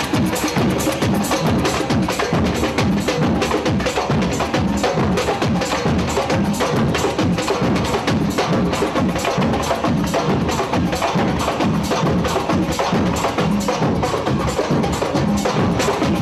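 Samba percussion music playing: a fast, dense rhythm of drum and wood-block-like strokes at a steady level.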